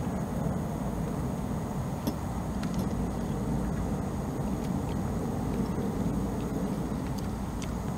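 Steady low background rumble, with a few faint short clicks.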